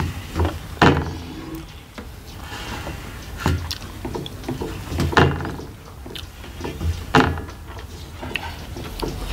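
Close-up eating at a meal: chewing, with four sharp crunches or clacks about two seconds apart.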